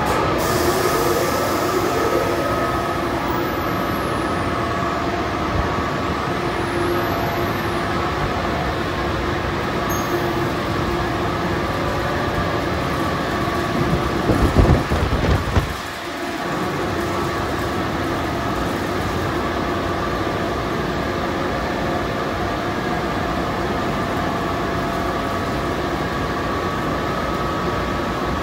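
Car wash exit air dryer blowers running, a loud steady rush of air with a constant whine. About halfway through the rush swells and buffets as the car rolls under the blowers, dips for a moment, then steadies again.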